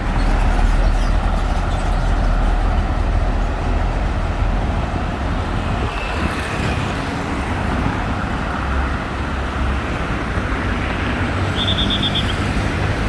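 Steady road traffic noise of cars and trucks passing on a busy multi-lane road, a continuous low rumble. A short high trill sounds near the end.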